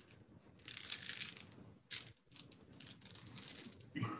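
Light metallic jingling in irregular bursts of about half a second each, fairly faint.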